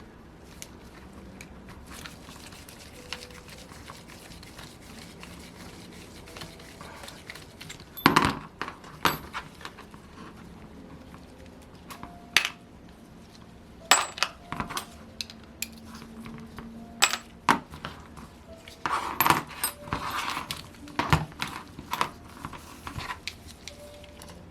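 Hand tools and small metal parts of a Saito FA-100T model engine clinking and knocking during disassembly: scattered sharp metallic taps and clanks, some with a short ring, sparse at first and busier from about a third of the way in.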